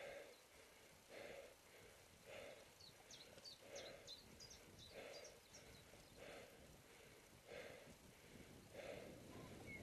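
A person's rhythmic breathing while exercising, about one breath every 1.2 seconds. A small bird sings a quick run of high chirps about three to five seconds in.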